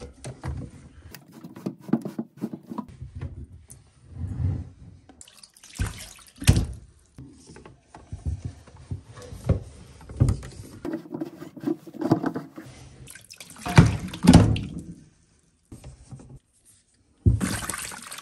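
Plastic reverse osmosis filter housings being unscrewed with a plastic housing wrench and handled, giving scattered clicks, knocks and clunks of hard plastic. Near the end, water runs and splashes in a sink as a housing is rinsed.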